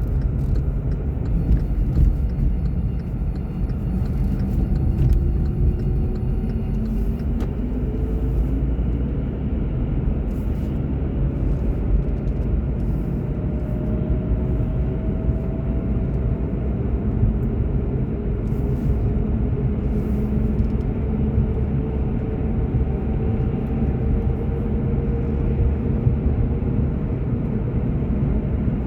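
Car driving, heard from inside: a steady low road and engine rumble, with a faint engine tone that rises slowly several times as the car gathers speed.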